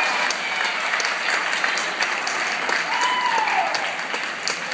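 Small crowd in a gymnasium clapping at the end of a dance routine, with a single shout about three seconds in.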